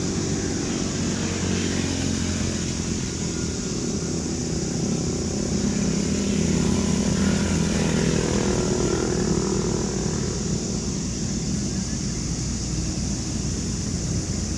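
Distant engines running steadily, heard as a low, even hum with a layer of hiss over it. The hum swells slightly about halfway through.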